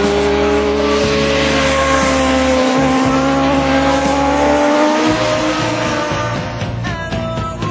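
Racing motorcycle engines running at high revs as bikes lap the track, the engine note slowly rising and falling. Music fades in near the end.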